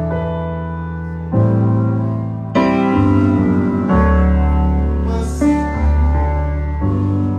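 Stage electronic keyboard played in a sound check: held chords over a deep bass, changing chord every one to two seconds.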